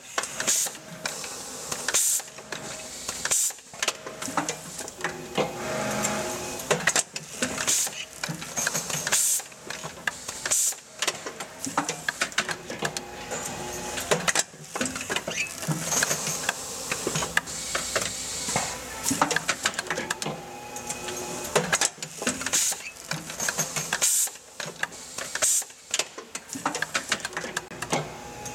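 Automated armature core assembly machine cycling: its pneumatic cylinders and slides clack and knock irregularly, with short bursts of air hiss.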